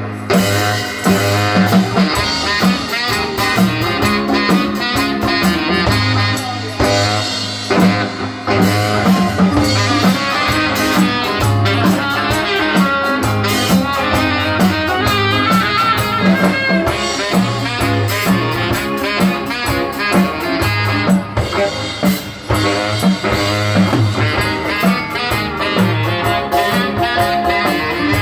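Live small band playing a blues-style instrumental: saxophone, electric guitar and drum kit over a steady beat and a repeating bass line.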